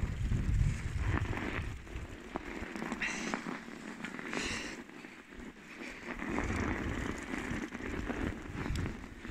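Bicycle tyres rolling and crunching through fresh snow, with many small irregular crackles and clicks. At times there is a low rumble as well.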